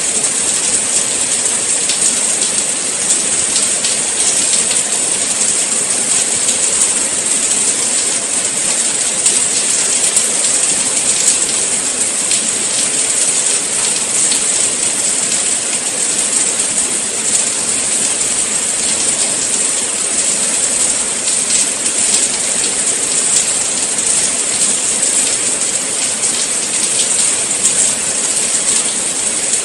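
Steady rain falling, a dense, even hiss of drops with many small patters scattered through it.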